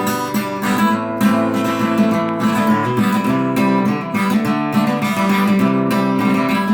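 Acoustic guitar strummed in a steady rhythm, playing the song's chords between sung verses.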